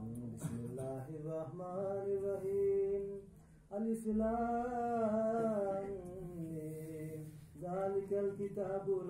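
A man chanting a devotional Islamic song unaccompanied into a microphone, in long, wavering held notes. He breaks off for a breath about three seconds in.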